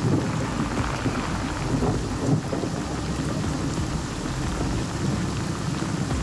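Heavy rain pouring onto a lake's surface, a dense steady hiss of splashing drops with a low rumble underneath.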